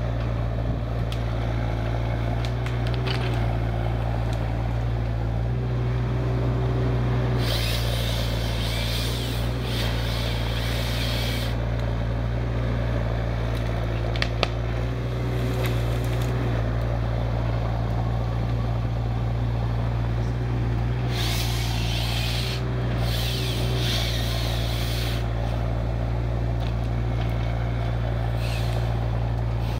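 Mini hydraulic excavator with a saw head at work, its diesel engine running steadily with a constant low hum. Two stretches of added hiss a few seconds long are heard, and a single sharp crack comes about halfway through.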